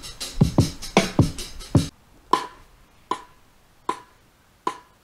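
Programmed drum beat from an Akai MPC Live II: deep, dropping kick drums and hi-hats. It cuts off suddenly about two seconds in. Four short, evenly spaced clicky hits with a ringing tone follow, about 0.8 s apart.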